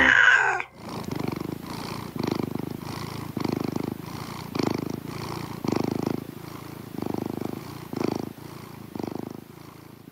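A ringing jingle note dies away at the very start. It gives way to a domestic cat purring, swelling and easing with each breath about once a second, and growing fainter near the end.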